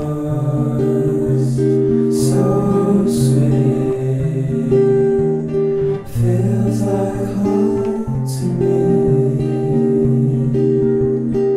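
Folk song played on acoustic guitar, with held chords changing about every second and singing over it.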